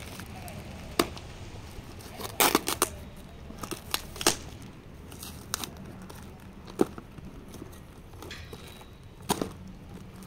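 Packing tape and cardboard of a taped parcel being cut with a small blade and torn open by hand: scattered sharp rips and crackles, with a quick cluster of tears about two and a half seconds in.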